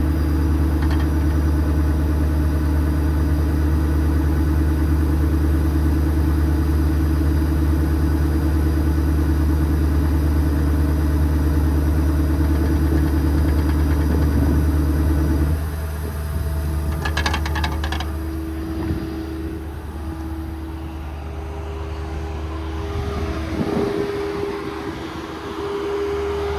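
A truck's hydraulic air compressor runs off a 6.7 Powerstroke diesel, making a steady low mechanical hum while the tank builds pressure. About halfway through the sound drops and changes to a lighter steady tone, with a brief rattle of clicks soon after.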